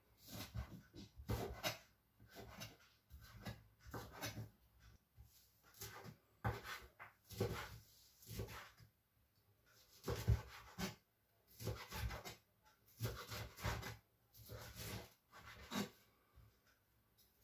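Knife chopping coltsfoot leaves and stems into small pieces on a cutting board: uneven runs of short chopping strokes with brief pauses between them.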